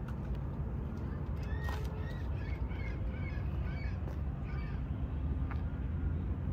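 A bird calling in a quick run of short chirps over a low steady rumble.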